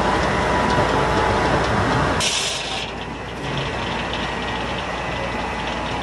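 Foley Belsaw circular sawmill running. About two seconds in, the sound changes abruptly with a brief sharp hiss, then settles into a quieter, steady run.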